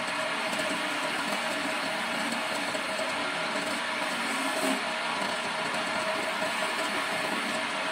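Homemade wood lathe running steadily while a hand chisel is held against the spinning wooden stair baluster, shaving the wood: an even, continuous cutting noise over the machine's steady hum.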